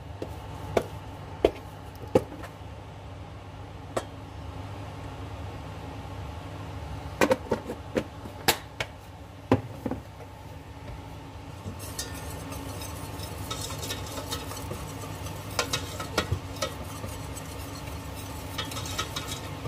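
A utensil stirring a flour-and-margarine roux in a pot, with scattered sharp knocks and clinks against the pan in the first half. From about twelve seconds in, a faint sizzling hiss with small crackles comes up as the roux starts to bubble, over a steady low hum.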